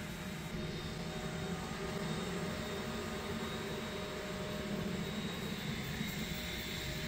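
Steady whir and hum of a running Voron 2.4 3D printer, its cooling fans turning with a few held tones over an even rush of air.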